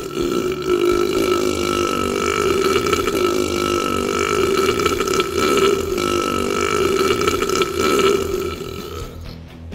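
One very long, continuous burp, held at a fairly steady pitch, that stops about nine seconds in.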